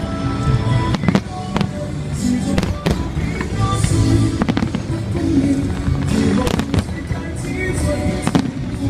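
Fireworks bursting in quick succession, with repeated sharp bangs and patches of high crackling, over music playing throughout.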